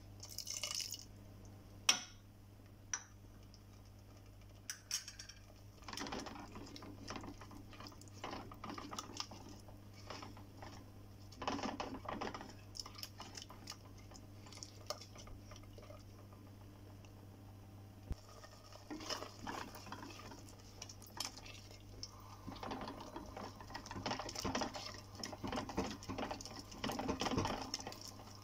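Liquid poured from a bowl into a clay pot of thick korma gravy, then a couple of sharp clinks. From about six seconds in, a wooden spatula stirs and scrapes the gravy around the earthen pot in repeated wet strokes, over a steady low hum.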